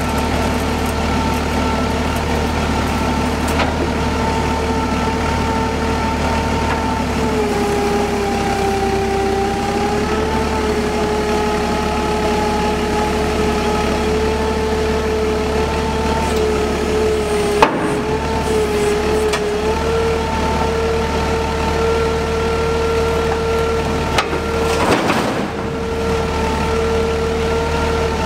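Clark forklift engine running steadily, with a high whine over a low hum that sags in pitch a few times. A single sharp knock comes about two-thirds of the way through, and a short burst of noise follows near the end.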